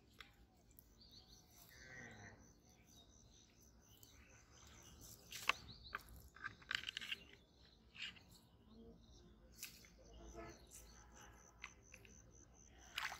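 Faint bird chirps and a rapid, high dotted trill that comes and goes, with a few scattered sharp clicks and taps.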